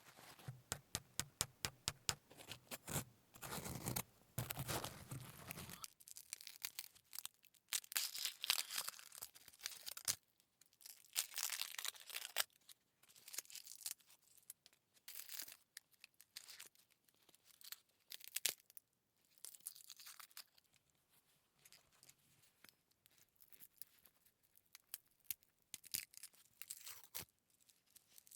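Close-miked tearing and crinkling in a stop-start series of short crackly bursts, denser for the first several seconds and then more scattered.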